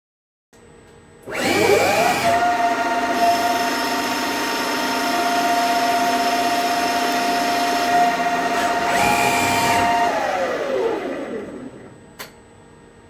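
DIY CNC lathe with a live-tooling spindle running a test cut. A motor spins up with a rising whine about a second in, holds a steady whine while the axes move, and winds down with a falling whine near the end, followed by a single click.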